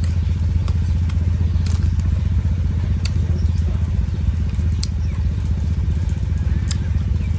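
A small engine running steadily, with scattered light clicks.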